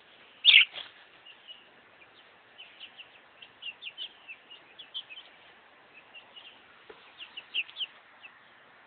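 Young chickens, still feathering in, peeping: many short, high chirps, with one louder call about half a second in.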